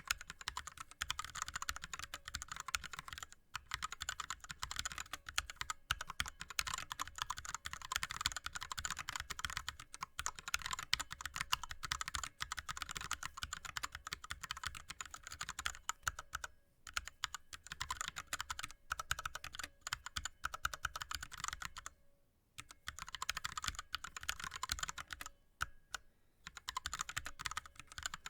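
Fast touch-typing on an ErgoDox split keyboard with Cherry MX Red linear switches and blank DSA keycaps: a dense, continuous stream of keystroke clacks, broken by a few short pauses.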